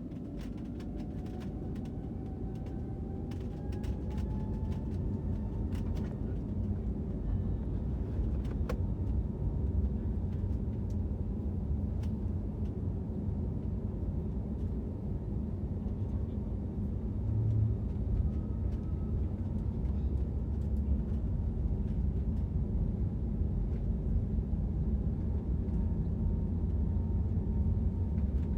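Jet airliner's engines heard from inside the cabin during the takeoff roll: a whine rising in pitch over the first few seconds and then holding steady, under a low rumble that grows louder, with faint rattles.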